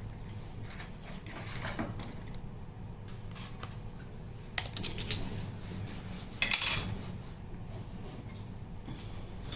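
Small clicks and light clinks of hands fitting a new M.2 SSD into an open laptop: a few sharp taps about five seconds in and a louder cluster of clicks a little later, over a low steady hum.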